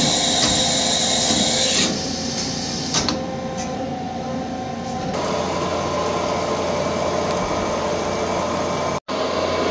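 Toyoda horizontal CNC machining center running a programmed peck-drilling cycle, with a steady spindle whine and coolant spraying at the steel plate. The sound shifts about two, three and five seconds in as the machine moves between steps, and it breaks off for an instant near the end.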